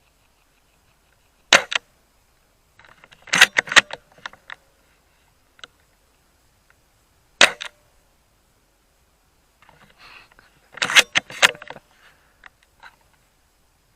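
Novritsch SSG24 airsoft sniper rifle firing: two single sharp cracks about six seconds apart. Between and after them come short clusters of rapid clicking and clatter, typical of the bolt being worked.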